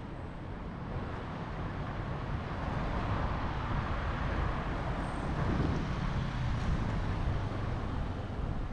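City street traffic noise: cars and motorbikes running through an intersection. It swells as vehicles pass in the middle, then eases.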